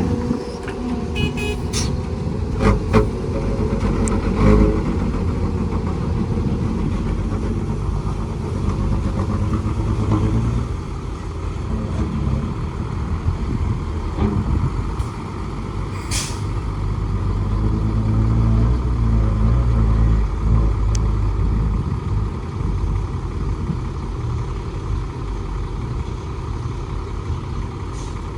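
Heavy diesel engines of an excavator and dump trucks running at an earthworks site, with several knocks in the first few seconds and a brief sharp sound a little past the middle. The engine sound swells for a few seconds about two-thirds of the way through, as under load.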